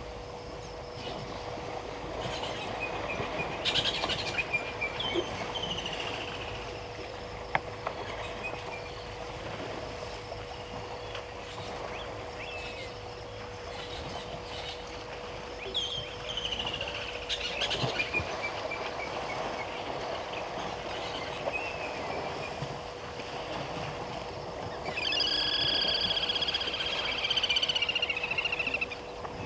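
Wild birds calling over outdoor bush ambience: a few short, falling whistled calls, then a louder, drawn-out call with several stacked tones near the end. A faint steady hum runs underneath.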